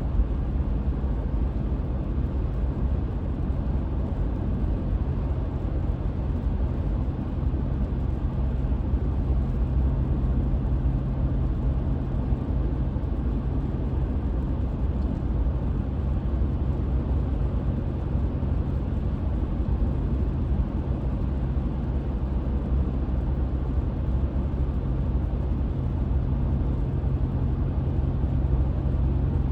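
Car driving at a steady pace, the engine and tyres making a continuous low rumble and hum heard from inside the cabin.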